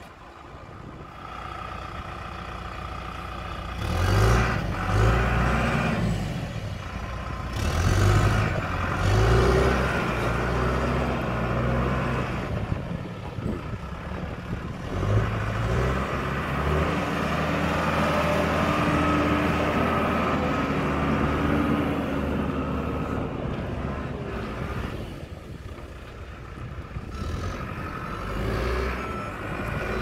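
2008 John Deere 310SJ backhoe loader's diesel engine running under load as the machine drives and turns, revving up several times, then holding steadier, with a brief easing-off near the end.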